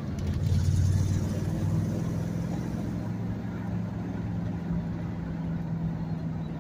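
Pickup truck driving, heard from inside the cab: a steady low engine drone with tyre and road noise, briefly louder about a second in.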